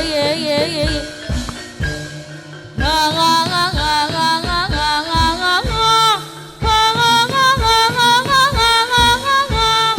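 Javanese jathilan accompaniment music: a melody over repeated drum strokes. About a second in it thins to mostly drum strokes, and the full melody returns near three seconds.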